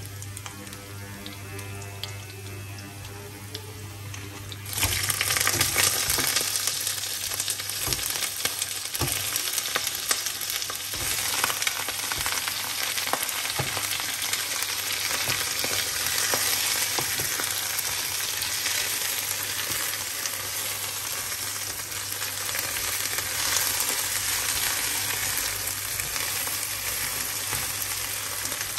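Minced garlic sizzling gently in oil in a nonstick pan. About five seconds in, whole giant river prawns go into the hot oil and the sizzling suddenly turns loud and stays loud, with the clicks and scrapes of a silicone spatula turning them in the pan.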